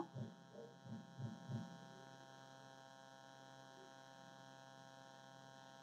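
Near silence: a faint, steady electrical hum, with a few faint low thumps in the first second and a half.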